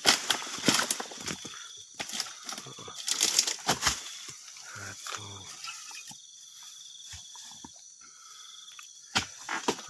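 Blade strikes and crackling as oil palm fronds and a fruit-bunch stalk are hacked during harvest: clusters of sharp chops in the first few seconds, sparser ones later. Insects trill steadily throughout.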